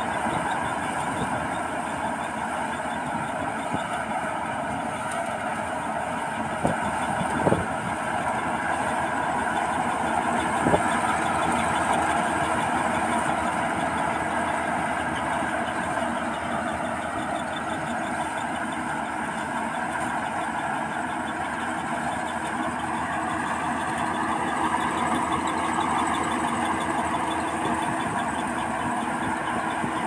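Rice combine harvester running steadily as it cuts and threshes standing rice: a continuous engine and machinery noise, with a few brief knocks about seven and eleven seconds in.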